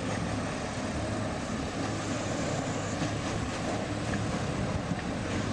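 Diesel engine of a Sherp amphibious ATV running steadily: an even low hum under a noisy wash.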